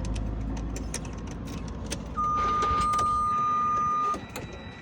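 A steady electronic warning beep from the Freightliner Cascadia's dashboard as the ignition is switched on. It starts about two seconds in, lasts about two seconds, then cuts off. Scattered light clicks sound around it.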